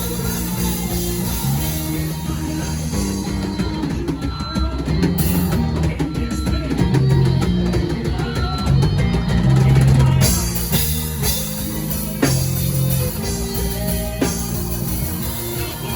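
Live band playing an instrumental worship passage with drum kit, bass and guitar. The high, bright part of the sound drops away for a few seconds midway and comes back with a hit about ten seconds in.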